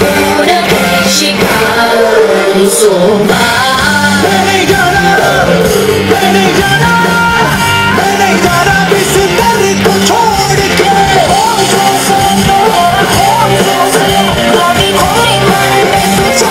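Loud song music with singing and a steady beat.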